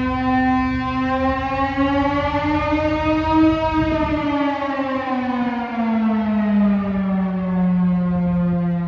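Chrysler air raid siren sounding a loud, harmonic-rich wail. Its pitch rises slightly, then winds steadily down from about four seconds in, as the low rumble beneath it drops away.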